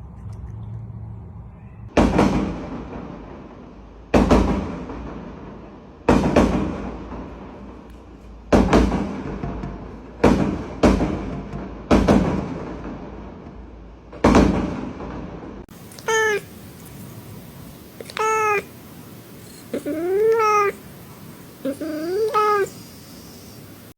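A series of eight sharp, loud hits, each fading away over about a second. After that, a domestic cat gives several drawn-out, mournful meows, each bending in pitch.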